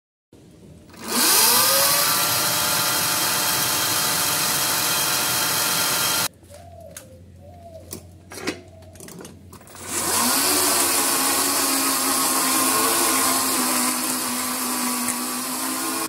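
Brushless DC motor of a homemade electric motorbike driving the rear wheel through its chain: a whine that rises over about a second and holds steady, drops away about six seconds in, then comes back up at about ten seconds and holds steady again.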